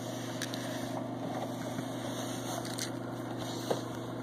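A steady low hum with a few faint clicks.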